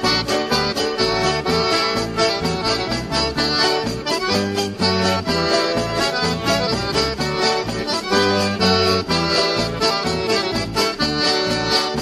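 Accordion-led dance music played from a vinyl LP, with a steady beat and a bass line under the accordion.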